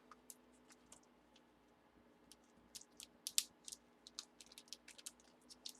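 Faint, irregular light clicks and taps, busiest in the second half, over a faint steady hum.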